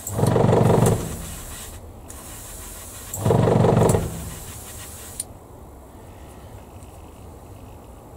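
Airbrush spraying, with a steady hiss of compressed air that cuts off about five seconds in. Twice, for under a second each, a louder low hum comes in over the hiss.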